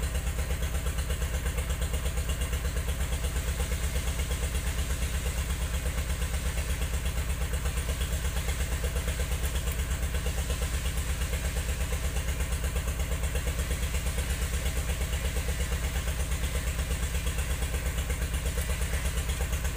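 Diesel engine of a heavy logging machine idling with a steady, even low pulse.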